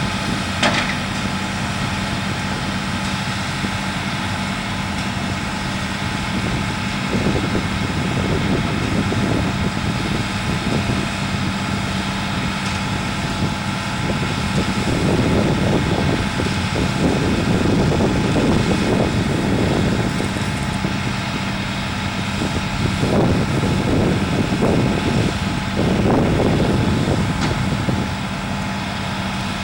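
Heavy diesel engines of concrete-pour equipment running with a steady hum, surging louder in several swells around a third of the way in, through the middle and near the end, over a background of highway traffic.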